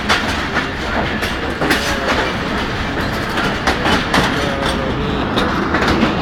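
Train running along the track, heard from aboard a passenger coach: a steady rumble with wheels clacking irregularly over rail joints.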